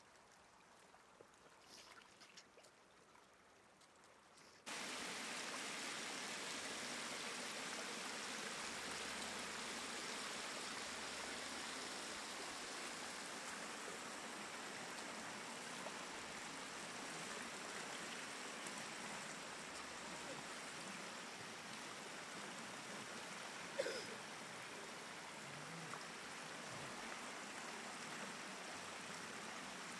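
Shallow floodwater pouring over a low rocky ledge, a steady rushing sound that starts abruptly about five seconds in; before that, only faint small splashes in shallow water. About three-quarters of the way through there is one brief, sharp splash, louder than the rushing.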